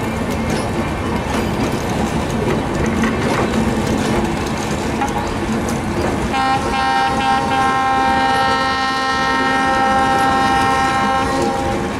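Passenger train rolling along the rails with faint clicking over the rail joints. About six seconds in, its locomotive horn gives a few short toots and then a long, steady blast lasting about four seconds.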